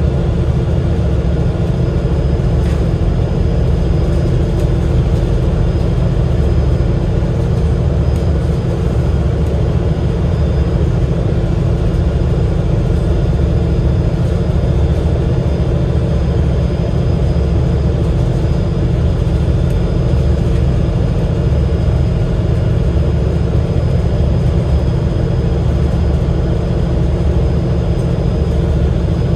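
Interior of a Cummins L9 inline-six diesel double-decker bus, with the engine and drivetrain running in a steady, unchanging low drone with a few held tones above it.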